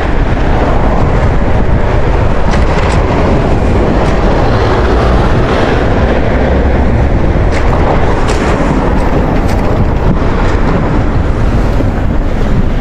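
Loud, steady rush of wind buffeting the microphone of a camera on a moving bicycle, mixed with road and passing-car noise, with a few faint brief clicks. It cuts off suddenly just after the end.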